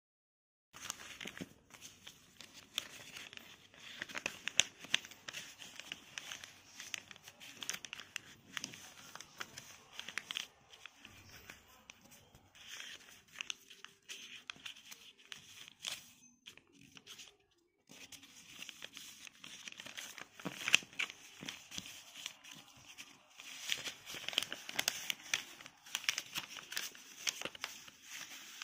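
A sheet of paper rustling and crinkling as it is folded and creased by hand, with many short crackles. The sound breaks off briefly about two-thirds of the way through.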